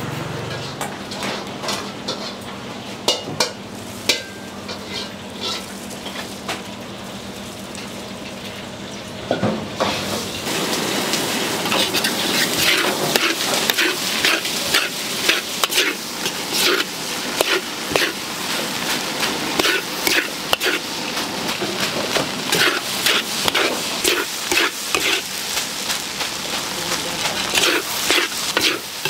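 Metal spatula scraping and clanking against a large wok as fried rice is stir-fried over a steady sizzle. It is quieter with only scattered strikes at first, then about ten seconds in the strokes turn loud and rapid.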